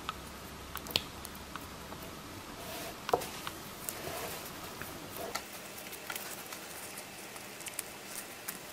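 Light clicks, taps and rustles of small toy pieces and packaging being handled, in scattered irregular bursts with a short rustle about three seconds in.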